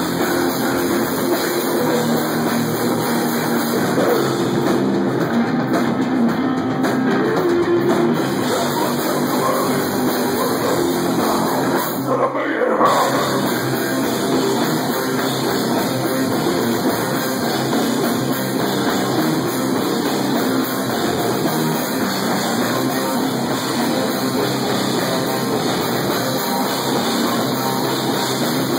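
Live stoner metal band playing loud: distorted electric guitar over a rock drum kit, dense and unbroken.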